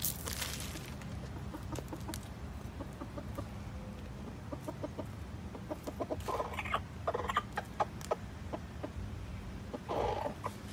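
Chicken clucking in runs of short, quick notes, busiest a little past the middle, with a longer cluck near the end. A brief rustle at the very start.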